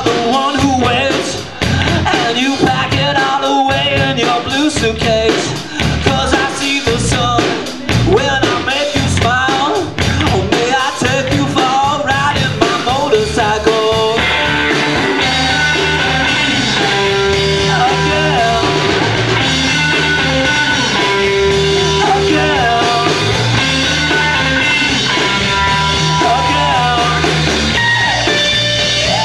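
A rock band playing live, with singing. The first half goes in choppy stop-start hits with brief gaps. From about halfway it settles into a steady, fuller sound with long held notes.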